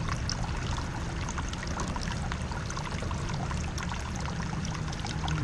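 River water lapping and trickling among shoreline rocks, a steady wash with many small irregular splashes.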